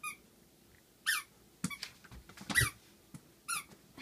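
Squeaky rubber ball dog toy being squeezed: about four short squeaks, each falling in pitch, roughly a second apart, with a soft knock near the middle.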